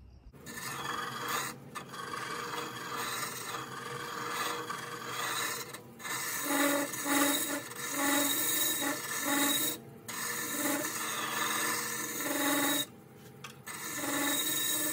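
Carbide turning tool scraping out the inside of a tea tree vase spinning on a wood lathe: a steady rasping scrape that stops briefly a few times, longest near the end, with a low repeating throb in the second half.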